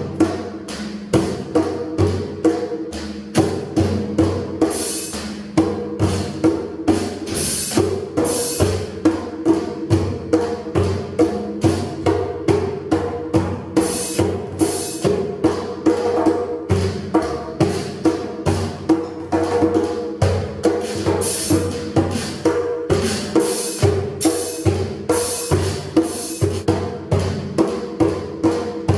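Electronic drum sounds from a roll-up drum pad struck with drumsticks in a steady beat of about two hits a second, with a cymbal crash now and then.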